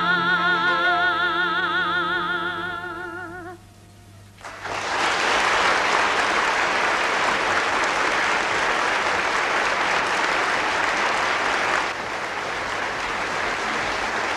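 A woman's voice holds the song's last note with wide vibrato and fades out about three and a half seconds in. After a short gap an audience breaks into steady applause, which eases slightly near the end.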